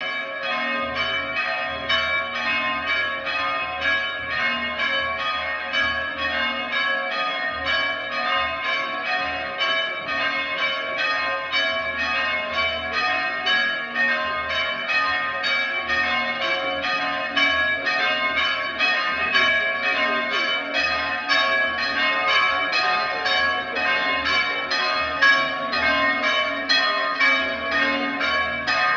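Church bells ringing a continuous fast peal, several overlapping strokes a second, rung for an Easter procession.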